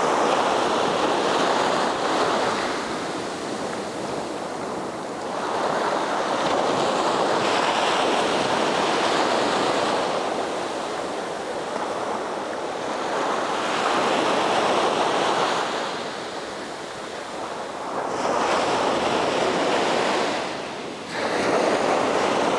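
Small shorebreak waves breaking and washing up a sand beach, the surf swelling and easing every few seconds, with a brief lull near the end.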